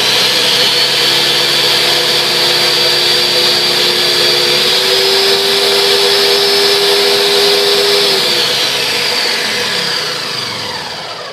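Ninja Mega Kitchen System 1500 blender motor running with an empty jar on its Blend setting, a steady high whine that steps up slightly in pitch about four and a half seconds in as it goes to Crush, only about 5% faster. At about eight seconds it is switched off and the whine falls away as the motor spins down.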